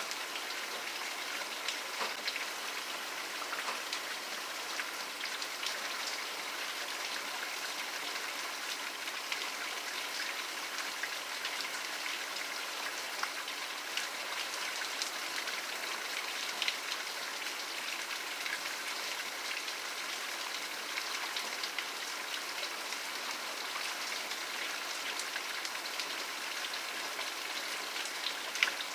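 Steady rain falling, an even hiss with scattered sharper drops striking a surface.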